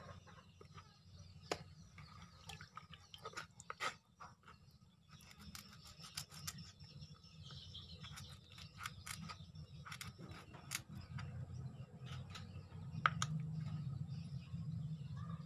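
Knife clicking and scraping against a cutting board while a fish is cut and cleaned: irregular sharp clicks, a few louder knocks, over a low steady hum.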